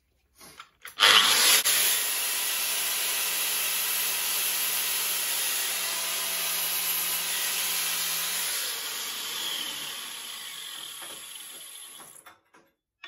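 An electric power tool starts about a second in, runs steadily, then winds down and fades over the last few seconds.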